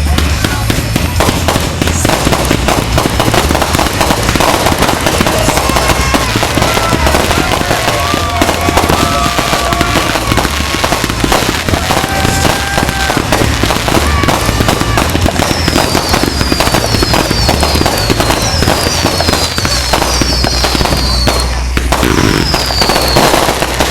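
Many fireworks going off at once with dense, continuous crackling and deep thuds. Steady whistling tones sound in the middle, and near the end comes a run of short high whistles, each sliding down in pitch.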